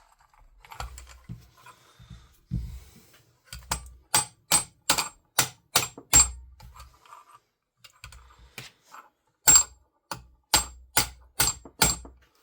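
Rubber mallet tapping an airsoft rifle's barrel home into its upper receiver: two runs of sharp taps, about two a second, each with a faint metallic ring, as the barrel is seated fully.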